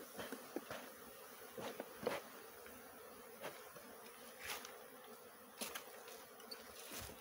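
Honeybees buzzing steadily around their disturbed colony, with single bees now and then passing close in short, louder buzzes.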